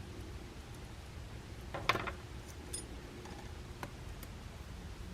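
A few faint clicks and taps from thin metal gas tubing being handled and bent by hand, the clearest about two seconds in, over a low steady hum.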